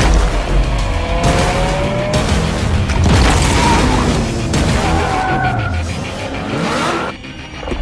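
Music mixed with a Lamborghini Aventador's V12 engine revving, its note rising, and tyres skidding. The sound drops away briefly near the end.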